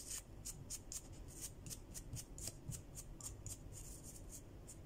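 Pink nail buffer block rubbed quickly back and forth over polygel-coated fingernails, a faint, even scratching of about four to five strokes a second, buffing down the old polygel layer.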